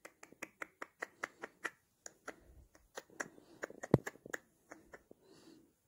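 A small dog chewing and smacking its lips after a treat: a fast, irregular run of sharp clicks that thins out near the end, the loudest about four seconds in.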